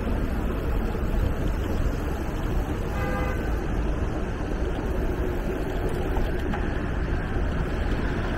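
Steady road traffic noise with low wind rumble on the microphone, and one short car horn toot about three seconds in.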